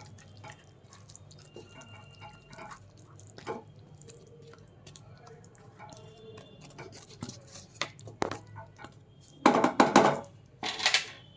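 Spoon stirring curry in a metal kadai, with light clinks and scrapes against the pan. Near the end come two short bursts of louder clattering of utensil on metal.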